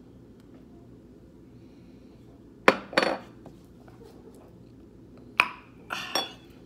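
Tableware clinking: a handful of sharp knocks of glass and dishes on a table, two close together near the middle and three more near the end, some ringing briefly.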